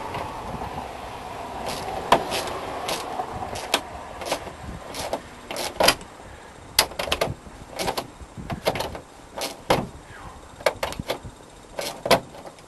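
VW bus engine apron tin and its trim piece being pushed and worked into place: rubbing at first, then a long irregular run of sharp clicks and knocks of sheet metal, a couple a second.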